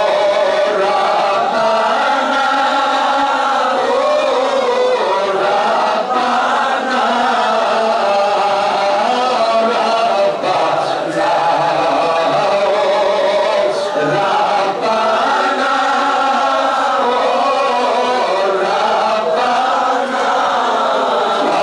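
A man's voice chanting a devotional supplication (munajat) into a microphone, with other men's voices chanting along.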